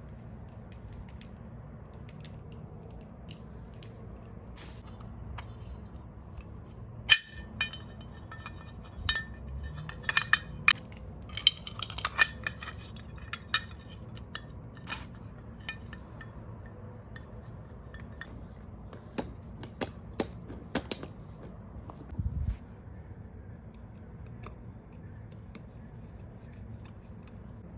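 Small metal parts and tools clinking and tapping against each other in a run of sharp, ringing clinks, over a steady low hum, with one dull thud near the end.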